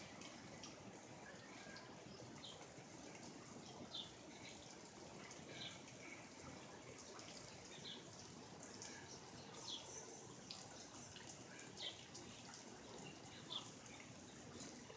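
A bird calling faintly, short high falling chirps repeated every second or two, over a soft steady hiss of dripping water after rain.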